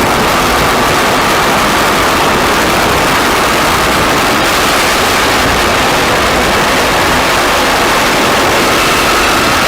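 Experimental noise music: a loud, unbroken wall of hiss and rumble across all pitches, with a faint steady whine sitting in the middle of it.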